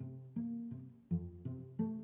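Background music: a run of short low notes, each starting sharply and fading, about three a second.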